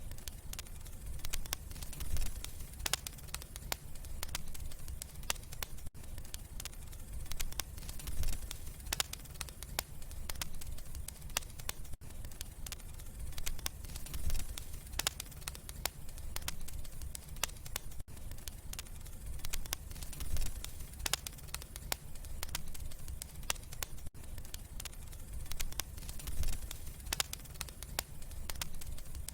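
Wood fire burning in a fireplace: irregular sharp crackles and pops over a steady low rumble of flame. There are brief dropouts about every six seconds.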